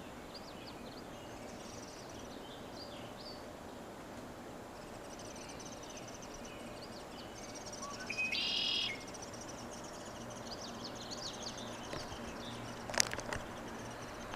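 Several small birds chirping and twittering over a steady outdoor background hiss, with one louder, buzzy call lasting just under a second about eight seconds in, and a sharp click near the end.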